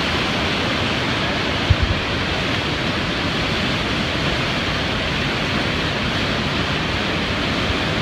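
Steady rush of whitewater rapids, with a brief low bump about two seconds in.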